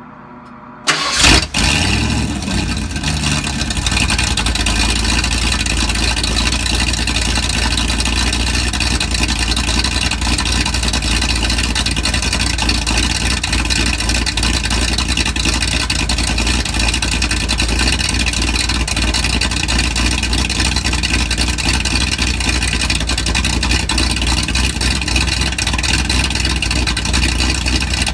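A vehicle engine cold-starting: it catches about a second in with a brief flare of revs, then settles within a few seconds and runs steadily.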